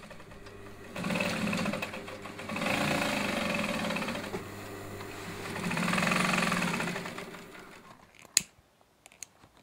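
Industrial sewing machine stitching heavy windmill sail cloth in three runs of one to two seconds each, its motor humming steadily beneath, then stopping. A single sharp click near the end.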